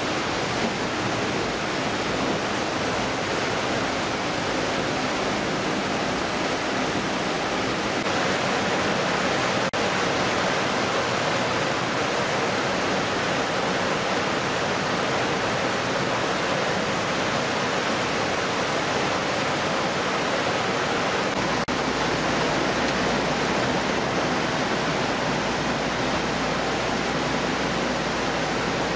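Steady rushing noise of a shipboard fish-processing line: running and spraying water with conveyor machinery. A deeper low rumble joins about two-thirds of the way through.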